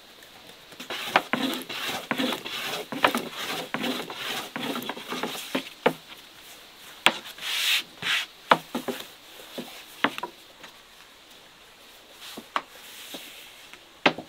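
Repeated rubbing and scraping strokes on a wooden surface for several seconds, followed by a few scattered sharp knocks.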